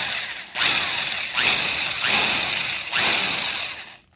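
Power drill boring a screw hole into a wooden rifle stock, run in a string of short trigger bursts of about half a second to a second each, six or so in a row.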